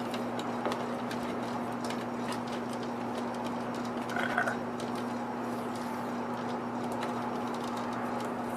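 Scattered light clicks and handling noises of hands working on electrical wiring and tape, over a steady low hum, with a short squeak about four seconds in.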